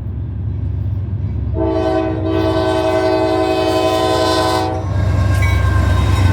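Norfolk Southern diesel locomotive sounding one long blast of its air horn, a chord of several notes lasting about three seconds, over the steady low rumble of the approaching train, which grows louder after the horn stops.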